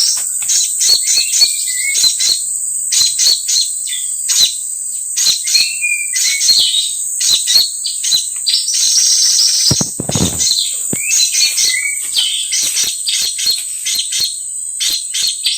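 Small birds chirping and twittering in quick, overlapping calls, some short notes gliding downward, over a steady high-pitched insect drone; a brief lower-pitched call sounds about ten seconds in.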